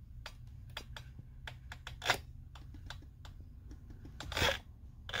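Quiet room tone: a low steady hum with faint scattered clicks, and two short rustling sounds, one about two seconds in and one near the end.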